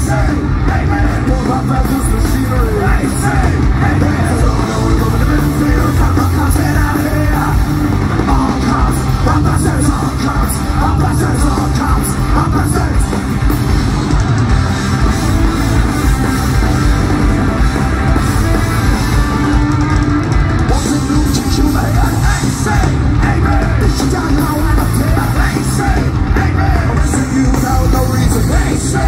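Punk rock band playing live through the stage PA: electric guitars and drums with shouted vocals, heard from within the crowd.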